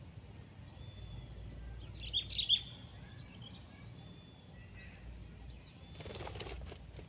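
Sooty-headed bulbul (kutilang) giving a quick burst of sharp chirps about two seconds in, then a brief rustle of flapping wings near the end, over a steady high hiss.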